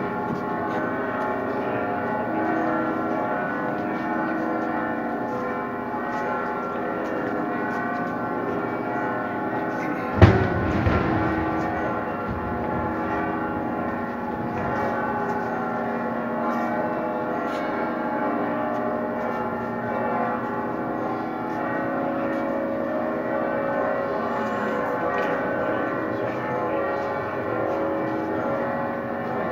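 Church bells ringing a continuous festive peal, many overlapping bell tones sounding together. One loud bang cuts through about ten seconds in.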